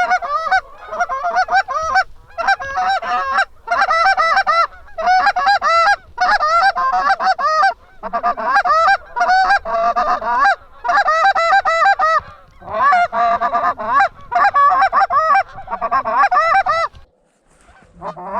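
Goose honking and clucking in quick, loud runs of short calls, group after group, breaking off about a second before the end.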